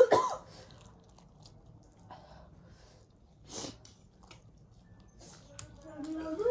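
A person eating spicy ramen noodles: a loud cough right at the start, then quiet chewing with small mouth clicks and a short breathy burst about three and a half seconds in. A faint pitched whine starts near the end.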